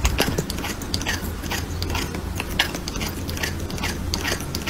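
Cat eating dry kibble, crunching it with sharp, irregular crunches about three times a second.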